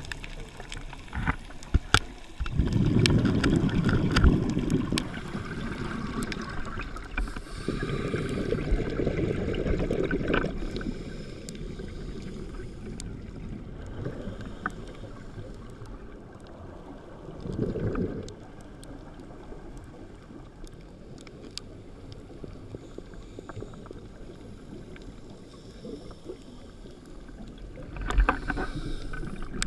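Underwater recording of a scuba diver's breathing: exhaled bubbles from the regulator rush past the camera in bursts every few seconds, the longest near the start, over a steady low hiss. Scattered sharp clicks run throughout.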